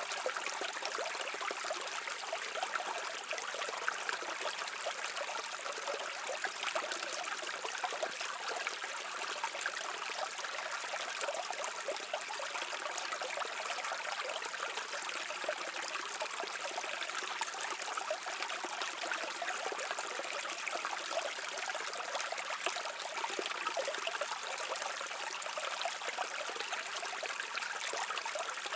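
Stream water flowing and trickling over rocks, a steady babbling rush with no breaks.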